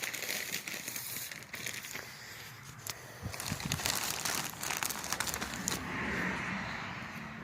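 Irregular crinkling and rustling handling noise with scattered clicks, like paper or plastic being handled.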